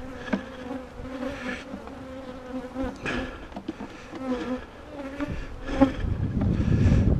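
Swarm of honeybees buzzing around an open hive at close range, a steady hum with a few light knocks. Wind starts rumbling on the microphone near the end.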